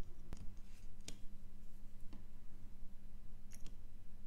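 A few light, sharp clicks about a second apart as a fine soldering-iron tip and solder wire touch the pins of a surface-mount chip being hand-soldered onto a circuit board, over a steady low hum.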